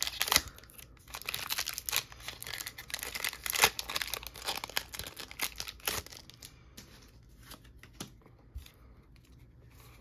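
Foil Pokémon booster pack being torn open and crinkled, a dense crackling for the first several seconds that thins to a few faint ticks near the end.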